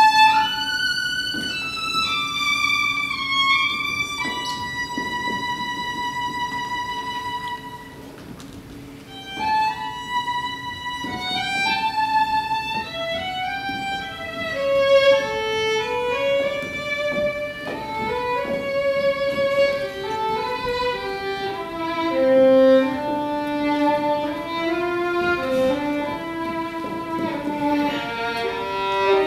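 Solo violin played live: high, long-held notes at first, a softer passage about eight seconds in, then quicker runs of notes that work their way down into the violin's lower register.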